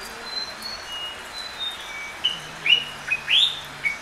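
Songbird singing: a phrase of short whistled notes ending in a quick upward sweep, heard twice, with fainter thin high whistles in between.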